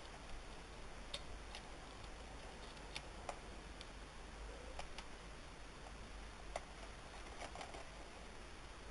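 Scattered light clicks and taps, unevenly spaced, from small laptop parts and tools being handled, over a steady faint hiss.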